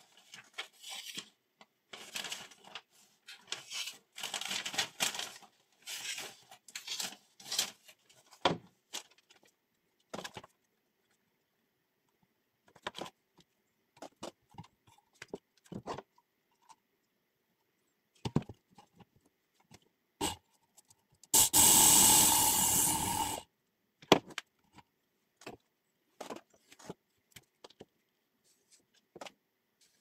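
A sheet of paper rustling and scraping for the first several seconds, then scattered clicks and taps from handling the Work Sharp Ken Onion Edition sharpener and turning its angle-adjust knob. About 21 seconds in, the sharpener's belt motor runs for about two seconds and stops.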